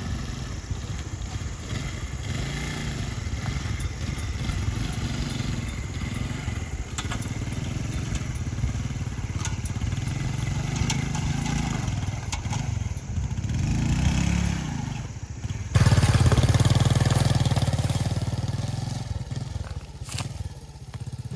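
Small single-cylinder motorcycle engine revving up and down as the bike picks its way slowly over riverbed rocks, the note rising and falling every second or two. About three-quarters of the way through it becomes suddenly louder, then slowly fades.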